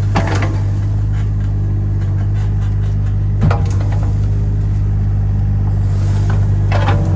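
Kato HD35 mini excavator's small Perkins diesel running steadily, with a few sharp metal knocks from the machine as it works.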